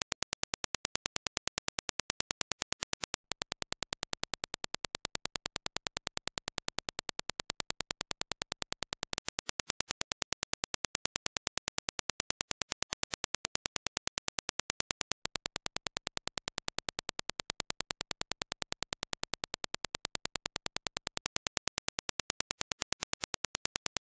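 Reference Dirac impulse test signal played as a fast, even train of sharp clicks, several a second.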